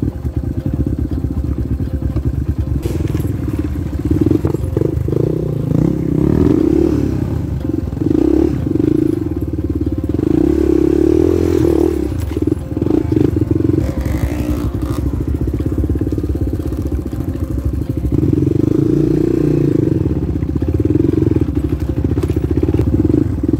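Yamaha Serow 225 trail bike's single-cylinder four-stroke engine heard from on board, revving up and easing off again and again while riding up a rough dirt trail.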